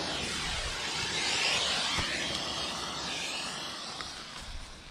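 Smoke bomb hissing steadily as it burns and pours out smoke, dying down near the end.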